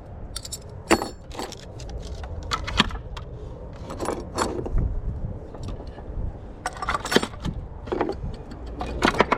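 Metal hand tools clinking and rattling as they are handled in a tool box: a dozen or so irregular sharp clinks, a few ringing briefly.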